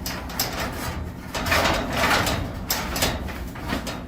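Scraping, rubbing and light knocking as an aluminium angle strip is handled and slid against a metal garage door panel, louder about one and a half seconds in.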